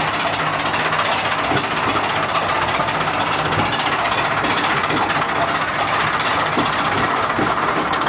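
Steady hum of running ride machinery with an even wash of noise over it, and no single sound standing out.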